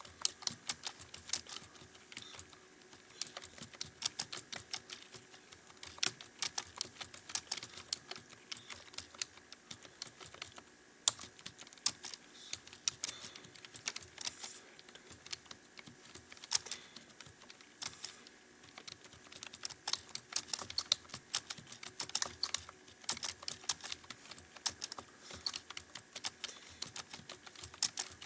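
Computer keyboard being typed on fast and continuously: a dense, uneven run of key clicks with brief pauses, and one sharper key strike about eleven seconds in.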